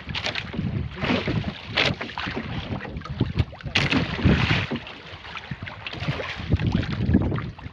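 Wind buffeting the microphone and choppy sea water splashing around an outrigger boat, in uneven surges.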